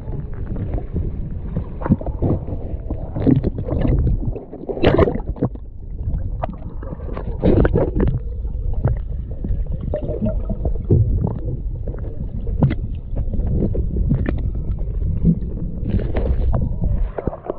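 Water sloshing and gurgling around a partly submerged camera, a low muffled rumble broken by irregular knocks and splashes.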